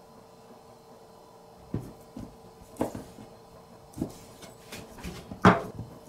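Several sharp knocks and clacks of a kitchen knife on a plastic cutting board as a piece of fish is sliced and the knife is put down, the loudest about five and a half seconds in.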